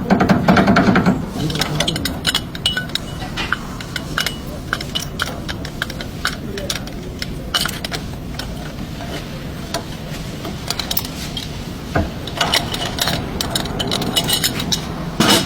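Scattered sharp metallic clicks, clinks and knocks, irregular, with talking near the start and again near the end.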